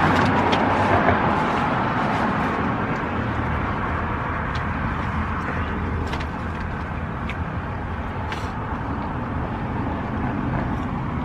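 Steady low hum of background noise, with scattered faint clicks and rustles, as of food wrappers being handled.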